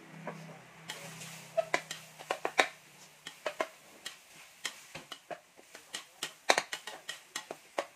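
Metal spatula knocking and scraping against a wok while stir-frying minced pork, in irregular clicks a few times a second.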